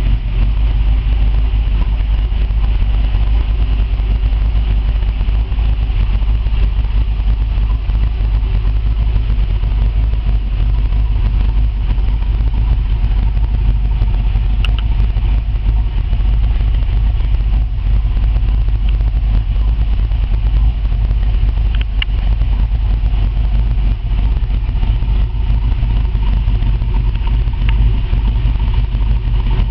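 1964 Chevrolet Corvette's small-block V8 idling steadily, heard from inside the cabin.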